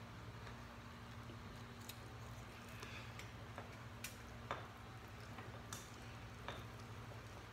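Quiet eating sounds: scattered small clicks and mouth smacks of people chewing and eating rice and fish with their fingers from plates, over a low steady hum.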